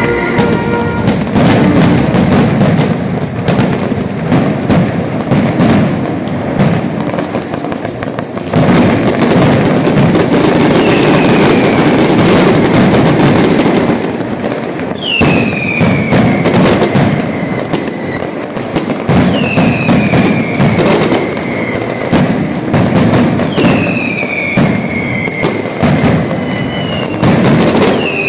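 Mascletà firecrackers going off in a dense, continuous barrage of bangs at ground level, surging again about a third of the way in. In the second half, descending whistles from whistling fireworks cut through the crackle several times.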